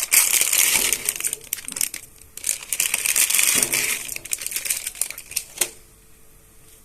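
Dry Maggi instant noodle cakes and their plastic packets crinkling and crunching as they are handled and put into a pan of water, ending with a sharp click about five and a half seconds in.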